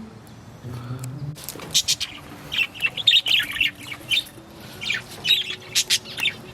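Budgerigars chattering in many short, sharp chirps and squawks, growing busier about a second and a half in.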